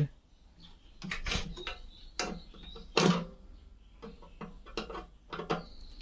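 Irregular sharp clicks and metallic knocks of a screwdriver and screws against a microwave oven's metal chassis as the screws holding the magnetron are taken out. The loudest knock comes about three seconds in.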